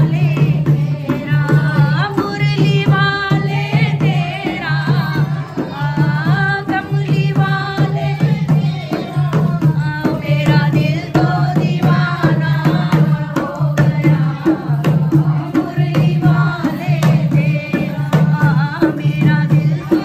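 Women singing a folk song together to a steady dholak beat, with handclaps.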